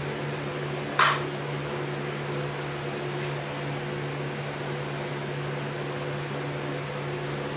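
Steady hum of a box fan running, with one short sharp noise about a second in.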